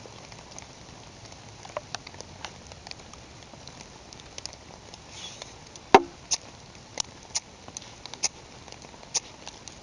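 Irregular short, sharp scrapes and clicks, about fifteen of them, the loudest about six seconds in: a striker being scraped down a ferrocerium rod over birch-bark tinder, failing to light it.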